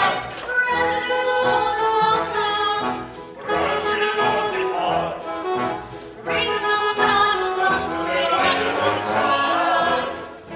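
Cast singing a lively musical-theatre number in chorus, with orchestra accompaniment.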